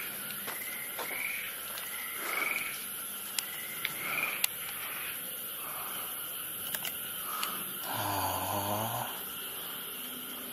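Night-time animal calls: short rising chirps repeat every second or so, and about eight seconds in comes one low, rough call lasting about a second. A few light clicks are also heard.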